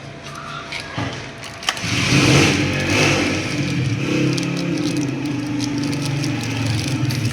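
Honda CD70's single-cylinder four-stroke motorcycle engine starting about two seconds in, then running steadily.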